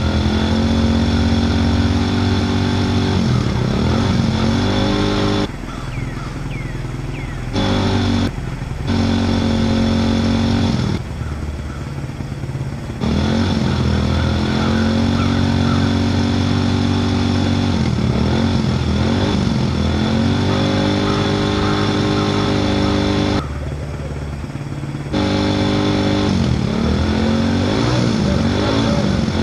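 Engine sound running and revving, cutting down sharply to a lower level three times and coming back each time.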